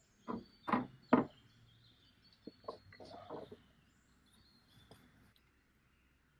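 Wooden chair parts knocked down onto a wooden workbench top: three sharp knocks in the first second and a half, then a few lighter knocks and handling sounds. Faint birdsong in the background.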